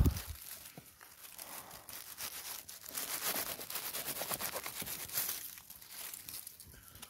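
Dry leaves, grass and pine needles rustling and crackling as hands push through forest-floor litter and take hold of a mushroom, after a single thump at the very start.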